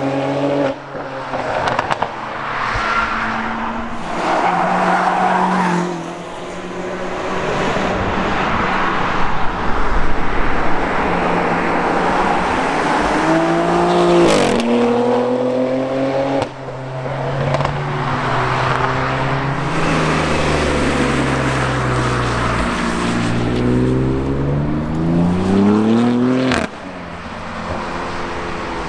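A camouflaged Alpina B3 Touring (G21) prototype's twin-turbo straight-six passing at speed in several short clips. The engine pitch climbs under acceleration and drops sharply as the car goes by, with abrupt changes where the clips cut.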